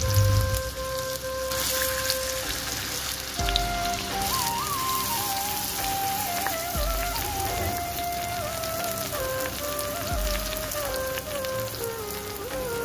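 Hilsa fish steaks sizzling in hot mustard oil in a cast-iron pan: a steady crackling hiss. Instrumental background music with a gliding melody and a low beat every few seconds plays over it.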